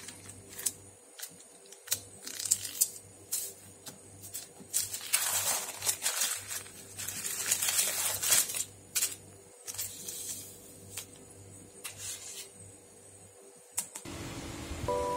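Plastic zip-lock bag of perilla seeds being handled: the bag crinkles and rustles with scattered small clicks as the air is pressed out and the seal is closed. The rustling is strongest in the middle stretch.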